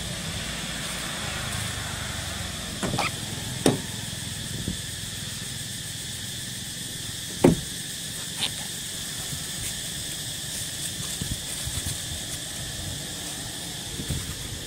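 A steady high insect drone with a low rumble beneath it, broken by a few sharp knocks and taps, the loudest about seven and a half seconds in.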